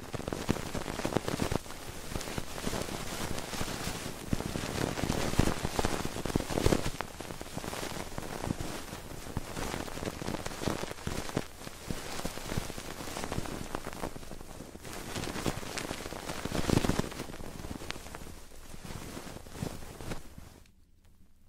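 Fingers rubbing and tapping on a binaural ASMR microphone's ears: dense, continuous crackling. It starts abruptly and stops shortly before the end.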